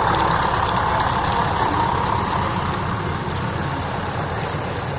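Route bus heard from inside its cabin: a steady engine and running hum that gradually gets a little quieter.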